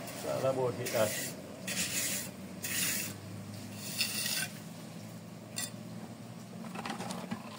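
Steel trowel scraping and smoothing wet concrete along the edge of a brick paver border, in about five short strokes roughly a second apart, then quieter.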